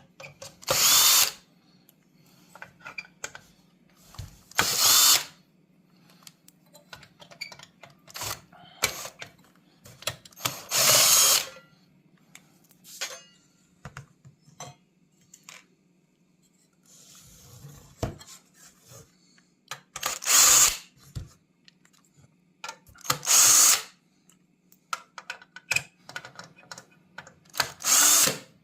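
Power drill-driver running in short bursts of about a second, six times, backing out the screws of the radio unit's mounting brackets. Between the bursts there are small clicks and knocks from handling the parts.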